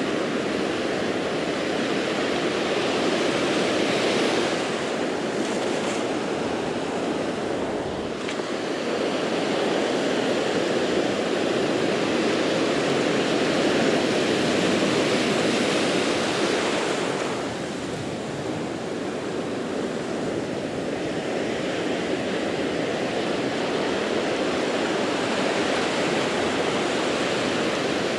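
Ocean surf breaking and washing up the beach at close range, a steady rush that swells and eases as the waves come in.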